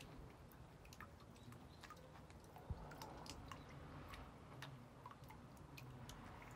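Near silence: faint outdoor room tone with small irregular ticks and one soft thump a little under three seconds in.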